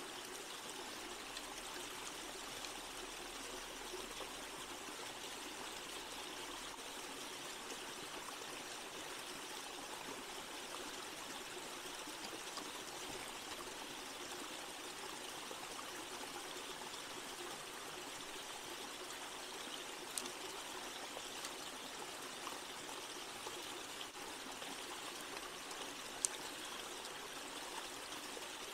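Shallow stream flowing steadily over rocks, with a small cascade. Two faint sharp clicks come about two-thirds of the way through and near the end.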